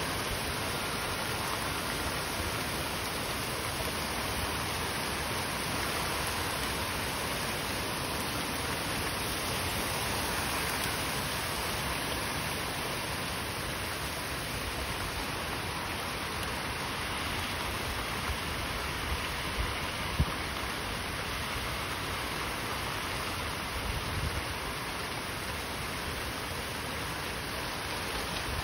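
Heavy wind-driven rain pouring down steadily in a severe storm, with a few brief low thumps partway through.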